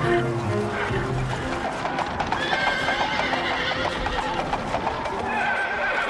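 Horses neighing several times over a quick run of hoofbeats, with music dying away in the first second.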